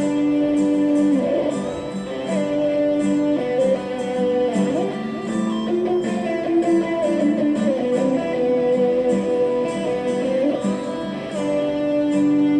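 Instrumental guitar intro of a sertanejo song: plucked and strummed guitar with held notes over a steady beat.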